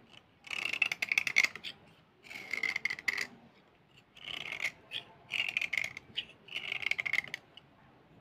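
Steel knife blade scraping along a slate pencil, shaving dust off its surface in about five separate strokes of roughly a second each, with short pauses between them.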